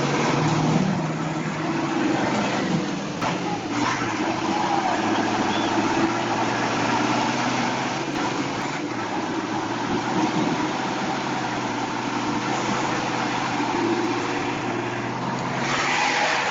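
A heavy vehicle's engine running steadily.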